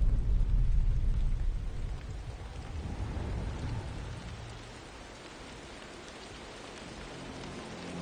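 Deep rolling thunder that fades away over the first few seconds, over steady rain hiss that carries on alone. Faint sustained music tones come in near the end.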